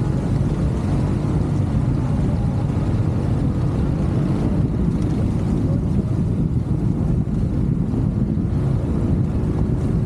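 ATV engine running, a steady low drone with no breaks or changes in speed.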